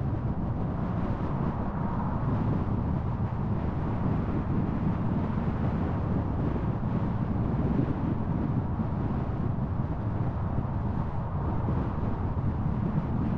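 Car driving at steady speed: an even low rumble of engine and tyre-on-road noise, with no sudden changes.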